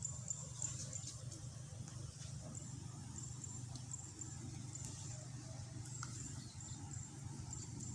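Insects chirping in short, high, on-off trills over a steady low rumble.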